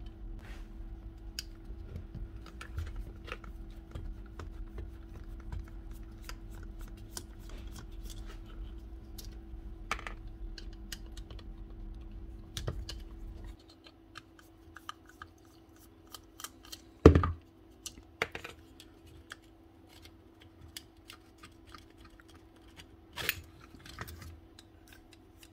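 Small scattered clicks and taps of plastic and metal parts being handled as a cordless drill's brushless motor is opened to separate the rotor from the stator, with a sharper knock about two-thirds of the way in and a few lighter ones after it. A low background rumble stops abruptly about halfway through.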